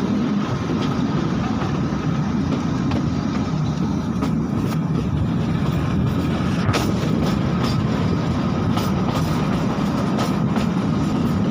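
Shimla toy train on the narrow-gauge Kalka–Shimla line, running with a steady rumble. A few sharp clicks and knocks from the wheels and cars come at irregular times, the clearest a little past the middle.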